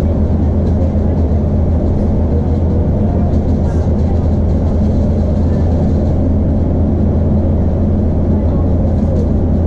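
Iarnród Éireann Class 2600 diesel multiple unit running along, heard from inside the carriage: a steady, loud low drone of the underfloor diesel engine and running gear.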